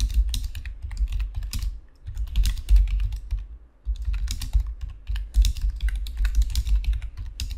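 Typing on a computer keyboard: quick runs of keystrokes, with two brief pauses about two and four seconds in.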